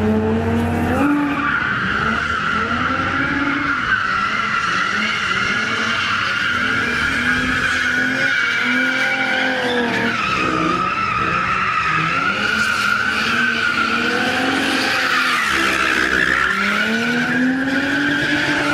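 Drift cars sliding with tyres squealing continuously while their engines rev up and down.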